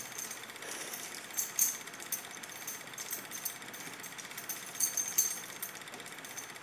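Simulated 8mm film projector clatter added by a vintage-camera app: a steady, rapid mechanical rattle with film-crackle hiss. A few sharper clicks stand out about a second and a half in and again around five seconds in.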